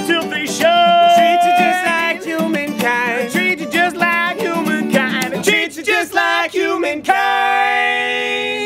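Acoustic guitar strummed under two male voices singing, ending on a long held note about seven seconds in that stops just before the end.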